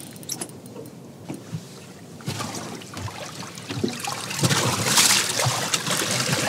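Water splashing and sloshing beside a small boat as a hooked fish is brought up to the surface on light tackle, getting louder from about two seconds in, with scattered knocks and clicks.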